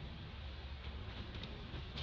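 Steady outdoor hiss and low rumble with a few faint rustles of dry leaf litter as young macaques move over it.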